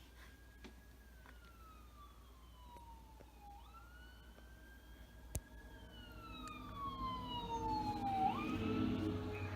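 Fire engine siren wailing as the pumper drives past: each cycle holds high, falls slowly, then sweeps quickly back up, repeating about every four and a half seconds. The truck's engine grows louder over the last few seconds as it draws near. A single sharp click sounds about five seconds in.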